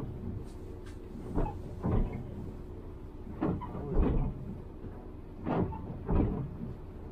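Cabin of an Iveco Urbanway 12 diesel city bus under way: a steady engine hum, broken by short knocks and rattles that come roughly in pairs every couple of seconds.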